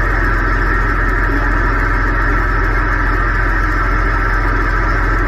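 CB radio receiver with the squelch open on the 11-metre band, giving a steady hiss of band static between skip transmissions, with a low steady drone underneath.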